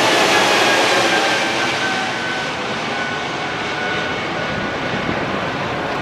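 Airbus A220-300's Pratt & Whitney PW1500G turbofan engines running loud as the jet passes, the engine whine slowly falling in pitch and the noise easing off a little about a second and a half in.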